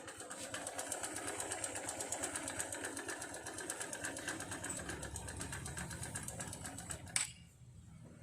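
Hero Honda Hunk's single-cylinder engine running with a rapid, even tak-tak-tak knocking. This is the fault noise that comes with white smoke and fast oil loss. It cuts off with a click about seven seconds in.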